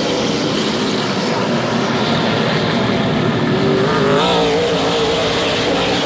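A pack of stock cars racing by on a paved oval, several engines running hard together with a wavering pitch; the sound brightens about four seconds in as the pack passes close.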